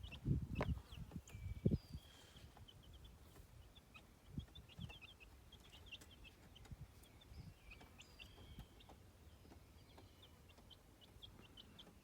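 Young chicks peeping faintly: many short, high cheeps scattered all through, with a few low knocks in the first two seconds.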